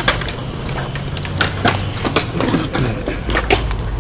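Skateboard wheels rolling on concrete with a steady low rumble, and many sharp clacks and knocks of boards striking the ground.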